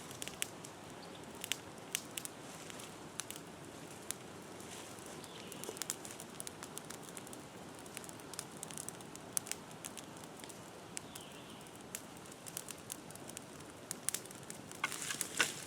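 Brush-pile fire of vine-tangled shrubs and oak branches crackling: irregular sharp pops over a steady low hiss, with a denser run of crackles near the end.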